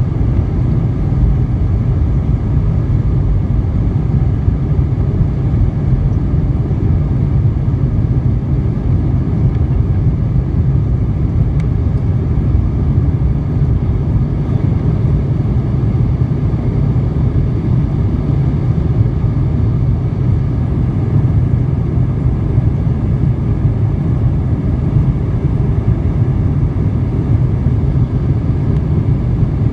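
Jet airliner's engines at takeoff thrust heard from inside the cabin: a loud, steady, low rumble through the takeoff roll, liftoff and initial climb.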